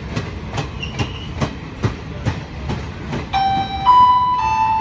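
Passenger coaches of an express train rolling past, their wheels clicking steadily over rail joints about two to three times a second. About three seconds in, the station public-address chime starts over it: a short tune of clear electronic tones that introduces a platform announcement. The chime is louder than the train.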